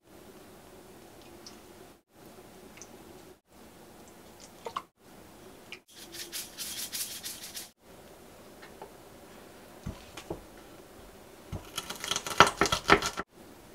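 Small kitchen handling sounds: faint clinks of a measuring spoon and glass bowl, then a spice shaker rattling for about two seconds in the middle. Near the end comes a quick run of sharp taps and knocks on a wooden cutting board as a garlic clove is handled.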